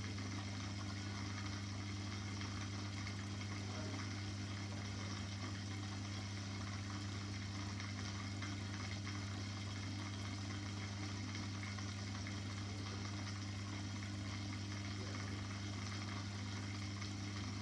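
Aquarium pump running: a steady low hum with a faint watery hiss.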